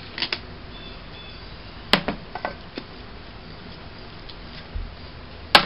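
Light clicks and knocks of plastic spreaders and a metal can of Bondo-Glass filler being handled and set down on a tabletop: a sharp knock about two seconds in, a few lighter taps after it, and the loudest knock near the end.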